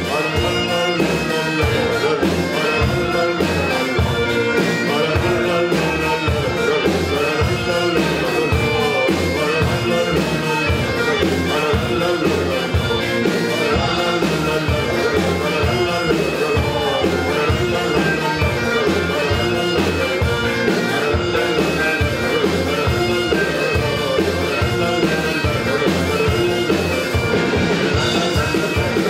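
Festive prog-rock band music: a full band with a steady drum beat and a wind-instrument lead melody.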